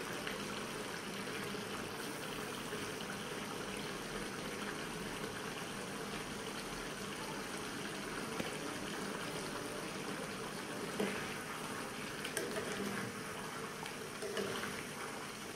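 Chicken curry simmering in a pan on a lit gas stove: a steady bubbling hiss. Near the end a steel ladle stirs through it, adding a few light knocks and scrapes.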